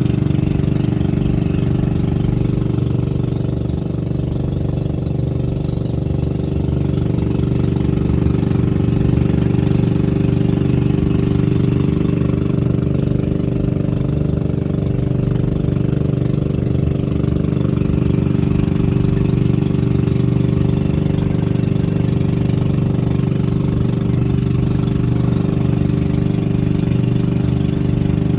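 Small engine running steadily at a constant pitch throughout, with no revving or change of speed.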